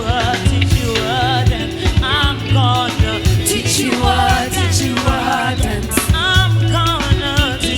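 Live gospel worship music: voices singing over a band with a steady beat and a prominent bass.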